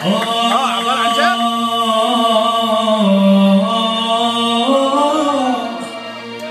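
A man singing a long, drawn-out phrase in Arabic, holding notes for several seconds, with pitch bends near the start and again about five seconds in, over a steady low backing note.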